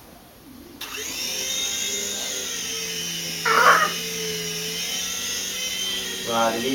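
Electric motors and rotors of a Brookstone U Control toy RC helicopter whining as they spin up suddenly about a second in and then run steadily. There is a short loud noise about three and a half seconds in and a brief pitched cry near the end.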